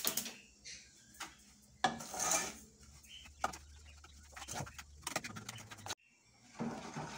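A wooden spoon stirring and scraping dry crystal sugar in a metal pot on a gas stove, with scattered knocks of the spoon against the pan. A rapid run of gas-stove igniter clicks ends right at the start.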